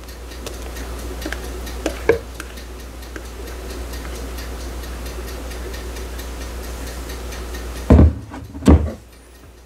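Kitchen timer ticking steadily while a cake bakes. There are soft knocks of a spoon against a glass bowl as pudding is spooned out, and two heavy thumps about eight seconds in.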